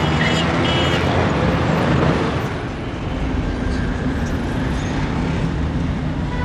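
Steady road and traffic noise of a car driving through city streets, a low rumble under an even hiss, a little louder for the first couple of seconds.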